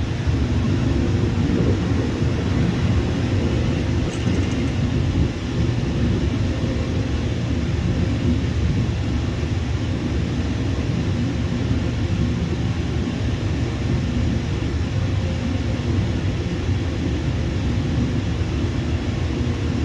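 Jet airliner engines running, a steady deep noise whose level hardly changes over the whole stretch.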